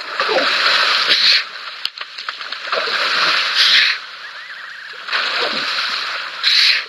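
Two hippos sparring in a waterhole: heavy splashing and sloshing of water in three surges, each a second or more long, about every two and a half seconds.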